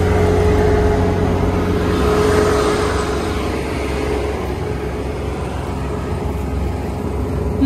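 Kubota ER470 combine harvester's diesel engine and machinery running steadily as it cuts rice: a continuous low drone with a steady whine over it that eases somewhat about three seconds in.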